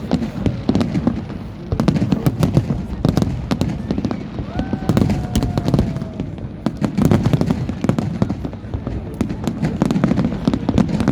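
Fireworks going off in quick, irregular bangs and crackles over the murmur of a crowd. About halfway through, a long whistle slides slightly down in pitch.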